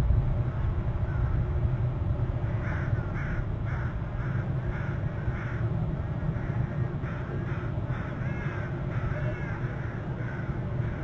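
A run of short, harsh bird calls, several a second, beginning about two seconds in, over a steady low rumble.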